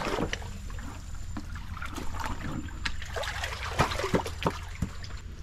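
Water splashing and trickling as hands grope through the shallows for river prawns, with a few louder short sloshes about four seconds in over a steady low rumble.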